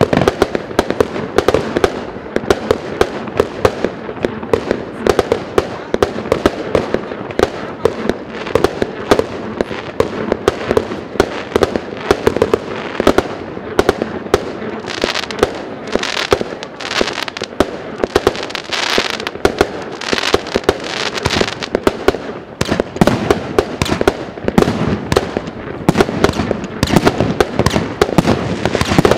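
A 100-shot fireworks cake with 0.8-inch tubes firing shot after shot in a rapid, steady string: launch thumps and aerial bursts with hissing, crackling breaks between them. About halfway through, a stretch of denser, brighter crackling.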